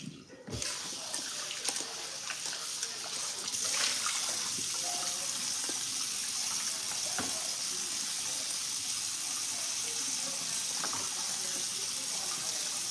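Kitchen tap running steadily into the sink while chicken breasts are rinsed under it, the flow getting fuller about four seconds in, with a few light knocks of handling.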